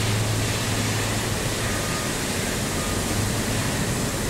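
Electric arc furnace running: a steady rushing noise with a low hum underneath, the hum strongest in the first second or so.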